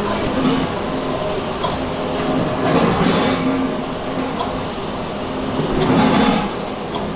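Packing-line machinery with a multihead weigher running with a steady hum. Twice, about three seconds in and again near six seconds, a batch of frozen fish-paste buns drops through a chute into a plastic-lined crate with a brief louder rush of noise.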